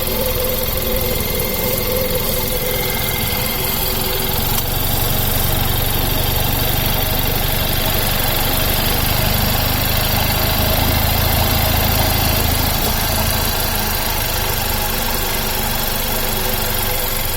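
Car engine idling with its accessory drive belt squeaking steadily, despite a new belt and tensioner. The engine note swells a little in the middle.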